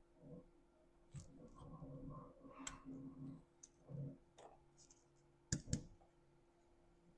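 Faint clicks and handling of a small screwdriver working screws out of a plastic launcher body, with two sharper clicks about five and a half seconds in.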